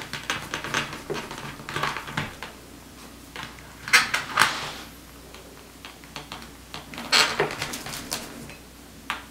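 Knife cutting and prying into the spiky husk of a durian that is still partly frozen and hard: irregular scraping, cracking and knocks, loudest about four seconds in and again about seven seconds in.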